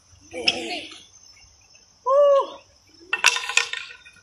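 Insects chirring steadily in the background, with a woman's breathy grunt of effort and a short voiced exclamation as she catches her breath. About three seconds in comes a brief clatter of sharp clicks.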